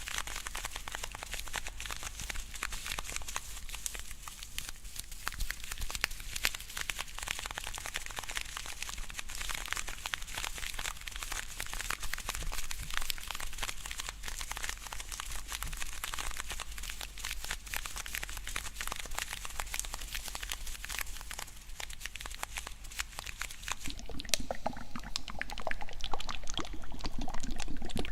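Close-miked ASMR licking and wet mouth sounds: a dense run of tiny crackling, clicking smacks that grow louder and wetter near the end.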